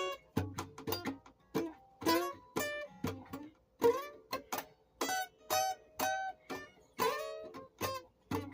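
Plucked string instrument playing a melody of single notes, each struck sharply and quickly dying away, about three or four notes a second.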